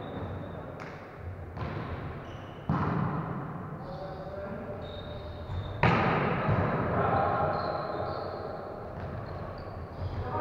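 Volleyball rally in an echoing sports hall: the ball is struck several times with sharp smacks that ring on in the hall, the loudest about six seconds in. Players call out between hits.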